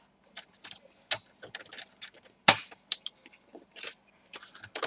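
Irregular small plastic clicks and taps from handling a laptop's casing and parts during disassembly, with one sharper knock about two and a half seconds in.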